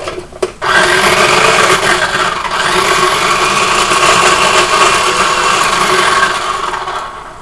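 Mini food processor motor running with its blade chopping juicy cut citrus into pulp, switched on by pressing down on the lid. It starts suddenly about half a second in, runs steadily, and winds down near the end.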